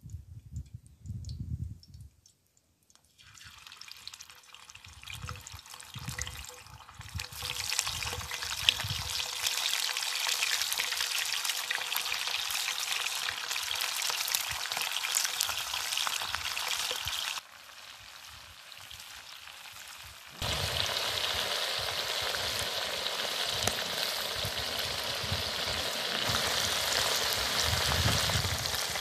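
Sausages and pork frying in a pan over wood embers: a loud, steady sizzle that builds up over the first few seconds, drops away for about three seconds past the middle, then comes back just as loud.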